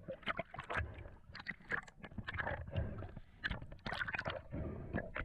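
Underwater sound picked up by a diver's camera: irregular clicks and crackles with gurgling water.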